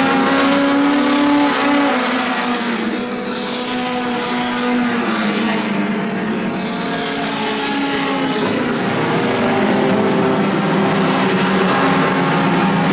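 A pack of four-cylinder dirt-track stock cars racing, several engines running hard at once. Their pitches slide apart and together as the cars go by.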